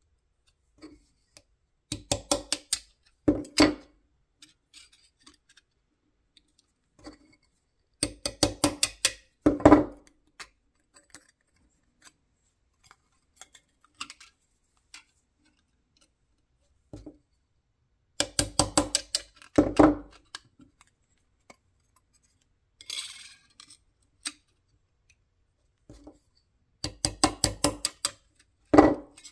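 Hammer tapping a steel punch against the metal instruction plate on a steel 1-2-3 block: four runs of quick, sharp metallic taps, several a second, each ending with a harder tap.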